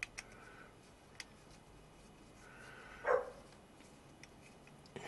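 Light clicks of a small screwdriver working a grub screw in a small steel crankshaft web. About three seconds in comes a short whine that falls in pitch, the loudest sound.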